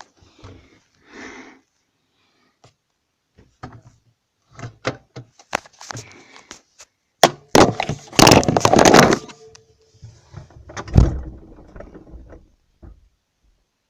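Household handling noises: scattered knocks and clicks, then a loud clatter of objects lasting about two seconds, and a single heavy thump a couple of seconds later.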